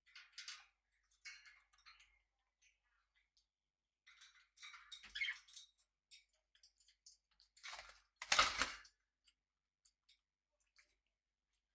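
Pet budgies and cockatiels moving about, making scattered small clicks, scratches and rustles, with a louder rustling burst about eight seconds in.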